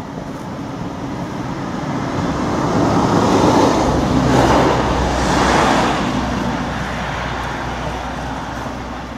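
A vehicle passing on the road: engine and tyre noise swells to a peak about four to five seconds in, then fades away.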